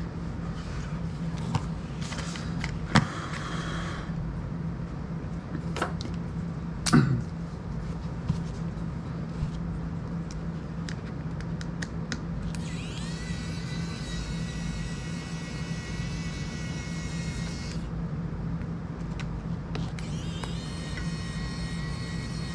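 A small FPV drone's brushless motors whining: a high whine rises and holds for about five seconds, stops, then rises and holds again near the end. Before that come a few sharp clicks and knocks from handling the drone, over a steady low hum.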